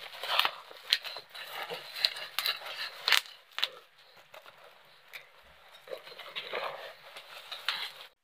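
Plastic bubble wrap and packing tape crinkling and crackling as a parcel is handled and cut at with a kitchen knife, with scattered sharp clicks. It goes quieter for about two seconds midway, then the rustling picks up again.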